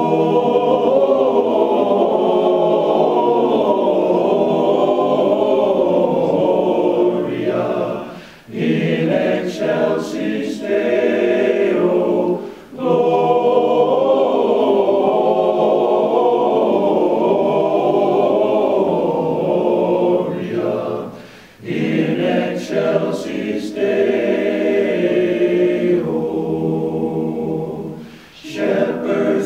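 Men's barbershop chorus singing a cappella in close four-part harmony, in long phrases with brief pauses between them.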